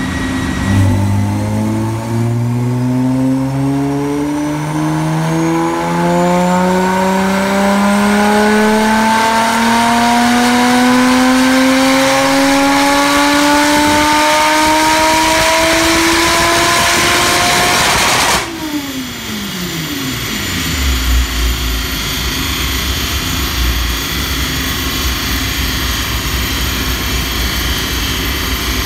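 Lotus Exige's supercharged V6 making a full-throttle run on a chassis dyno, its pitch climbing steadily for about eighteen seconds. Then the throttle shuts and the revs fall away, leaving a low, steady rumble.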